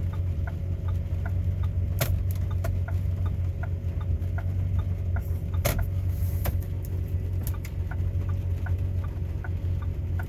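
2006 Ford 500's 3.0-litre V6 idling steadily with a low, even hum. Light regular ticking about twice a second runs over it, with a couple of sharp clicks about two and six seconds in.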